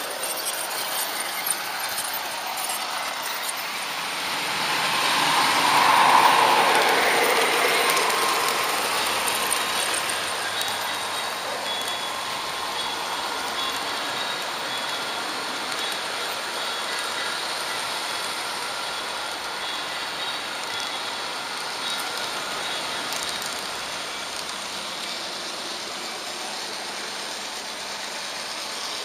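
Märklin HO-scale model train running along the track, heard from a camera riding on it: a steady rush of wheels on rails with a faint whine. The noise swells a few seconds in, then settles to an even running sound.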